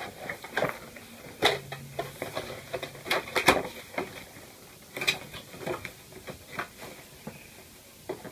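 A cardboard shoebox being handled and opened by hand: irregular taps, scrapes and rustles of the lid and packing, with sharper knocks about 1.5, 3.5 and 5 seconds in.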